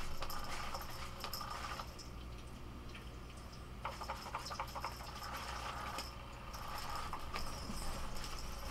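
Battery-powered cat toy whirring and rustling as its wand moves under the printed fabric cover. It drops off for a couple of seconds about two seconds in, then picks up again, with a few light clicks and faint jingles of a cat's collar bell.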